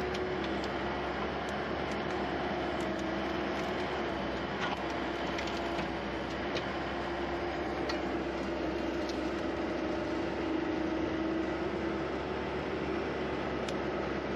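Skid steer engine running steadily at working speed, a constant hum, with scattered light clicks while the grapple handles brush.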